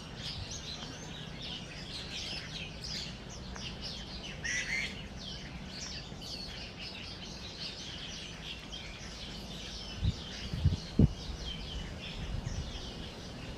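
Many small birds chirping and twittering together, dense and overlapping, over a steady low hum. A few low thumps come about ten seconds in.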